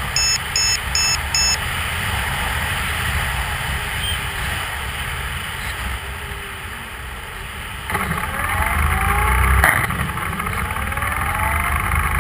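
Airflow rushing over a camera mounted on a radio-controlled model plane in flight, with a low rumble. In the last few seconds the plane's motor whine glides up and down in pitch as it comes in low, with a sharp knock about three-quarters of the way through.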